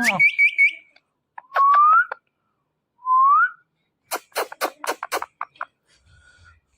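Ringneck parakeet calling: a few quick high chirps, then two short rising whistles, then a fast run of harsh clicking squawks.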